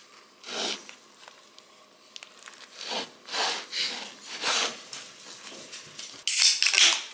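Flour tortilla rubbing and rustling under the hands as it is folded and rolled around a lettuce filling on a plate: several short swishes, the loudest near the end.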